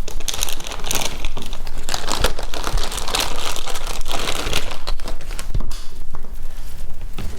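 Packaging bag crinkling and rustling as it is handled and opened to take out a new laser-printer toner cartridge, with quick irregular crackles throughout.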